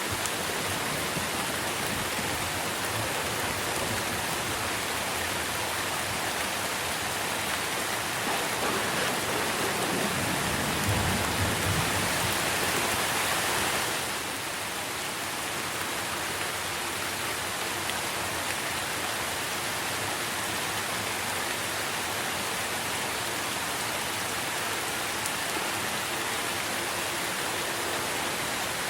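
Steady rain falling on trees, an even hiss that swells heavier for a few seconds near the middle and then eases back to a steady fall.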